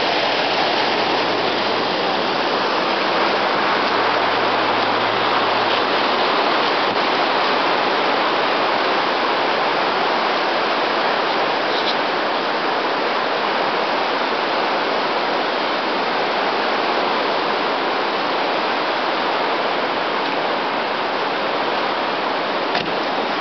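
Floodwater rushing: a loud, steady, unbroken roar of moving water.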